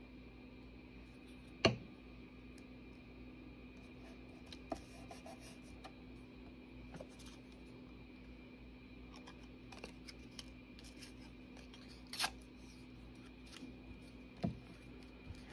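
Paper scraps and a glue stick being handled: a few scattered sharp clicks and brief paper rustles, the loudest click about two seconds in, over a faint steady hum.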